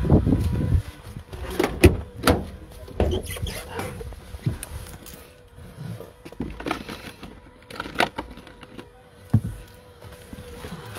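Scattered knocks and clunks of someone moving about in a van and handling its doors, with a low rumble in the first second. A faint steady hum runs underneath.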